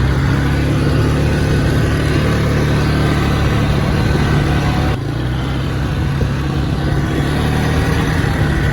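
Four-wheeler (ATV) engine running steadily while under way, with a brief dip in level about five seconds in.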